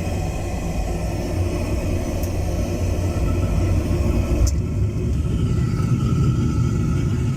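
Oil-fired heating boiler's exhaust flue giving a steady low rumble as the burner runs. About four and a half seconds in, the higher hiss drops away, leaving the rumble and a faint steady tone.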